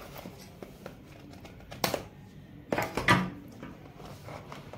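Cardboard pizza box being opened, its seal slit with a knife and torn free from the lid: a handful of sharp clicking, scraping and tearing sounds, the loudest about two and three seconds in.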